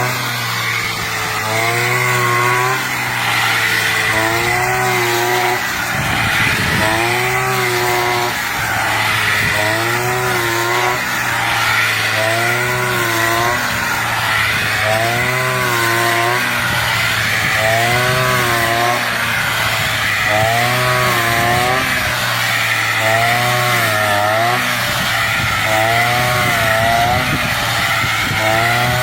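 Brush cutter engine running at high revs. Its pitch dips and rises again about every two and a half seconds as the blade swings through and cuts the rice stalks.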